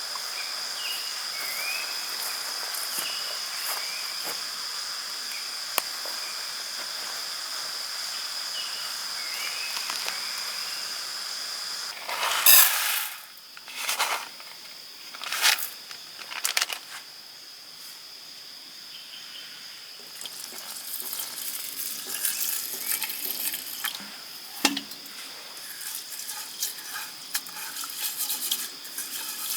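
Forest ambience with an insect's steady high-pitched chirring and a few faint chirps early on. Several loud short rustling or clattering noises come about halfway through, and a light crackling follows near the end.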